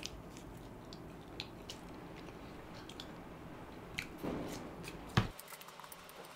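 A man chewing food close to the microphone: faint wet mouth sounds with scattered soft clicks, and one sharper click a little after five seconds.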